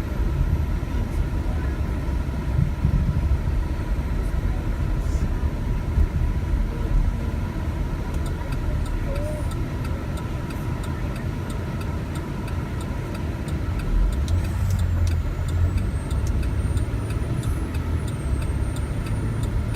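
Hurricane-force wind gusting against the microphone: a steady low rumble that swells and eases.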